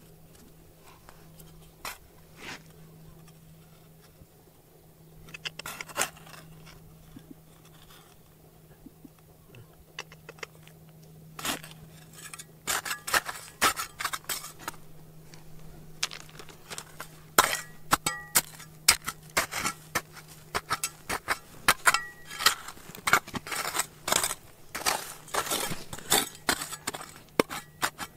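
Hard objects clinking and knocking together, a few scattered taps at first and then quick, dense clinks from about a third of the way in, some with a short metallic ring. A faint steady hum lies underneath.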